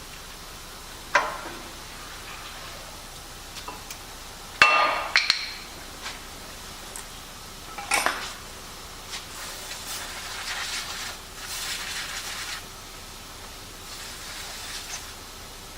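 Metal tools and brake parts clinking and clanking during brake work on a car. There is a sharp clank about a second in, a louder cluster of clanks near the five-second mark and another around eight seconds. Lighter scraping and rattling follow from about nine to thirteen seconds.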